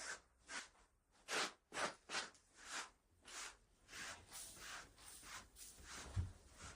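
Footsteps crunching in snow, about two steps a second, growing softer and less distinct in the second half.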